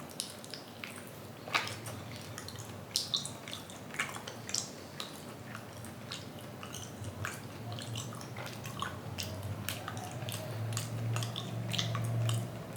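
Eating sounds: scattered small wet clicks and smacks of chewing, now and then with a light clink, over a faint low hum that swells toward the end.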